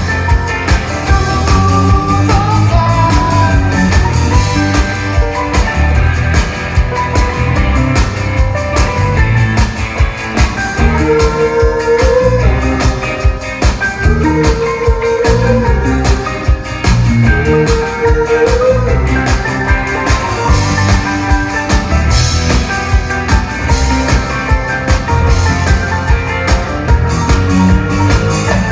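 Live rock band playing an instrumental passage with a steady drum beat and bass, and a lead melody line that repeats a short phrase three times in the middle.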